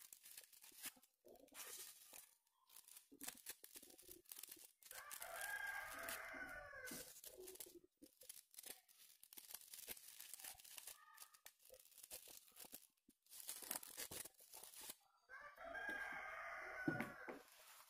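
Crepe paper rustling and crinkling as hands shape the petals of a paper rose. A drawn-out animal call sounds in the background twice, about five seconds in and again near the end.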